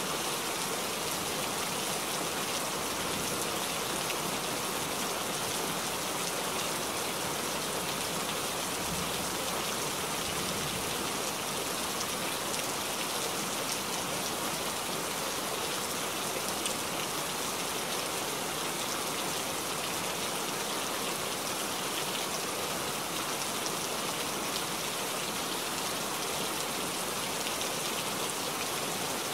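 Steady rain falling, an even patter of many drops with no breaks or sudden sounds.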